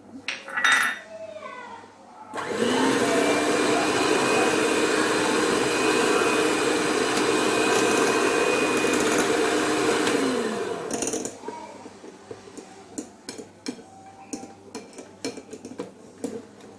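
Electric hand mixer beating cake batter: it spins up about two seconds in, runs steadily for about eight seconds, then winds down. A clink comes just before it starts, and light clinks and taps follow.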